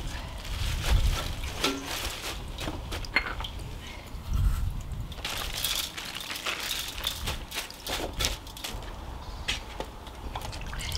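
Coarse sea salt sprinkled by hand over raw young radish and cabbage greens in a stainless steel bowl. The grains and leaves make scattered small ticks and rustles, with a few dull low rumbles. This is the salting stage of making kimchi.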